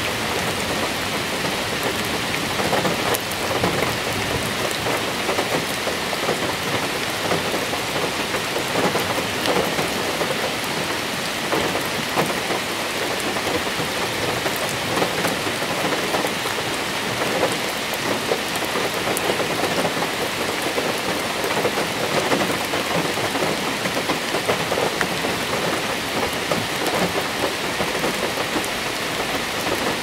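Heavy rain falling steadily, a dense, even patter of drops with no letup.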